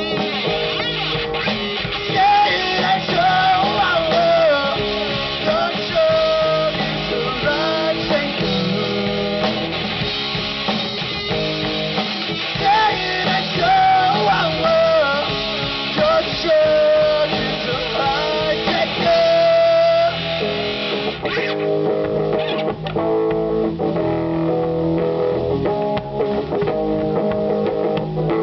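Live rock band playing: a lead guitar melody with bends over electric guitar chords, bass and drums. About twenty seconds in the lead line stops and the band carries on with chords alone.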